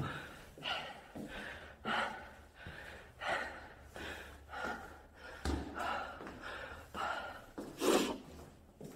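A person breathing hard and fast while climbing stairs after a run, a quick breath about every second, with the loudest breath near the end.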